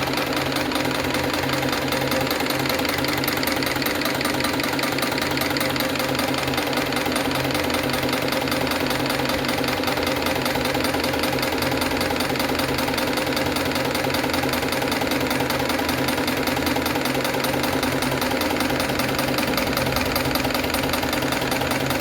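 Industrial sewing machine for polishing discs and buffing wheels, running steadily as it stitches with a fast, even knocking rhythm.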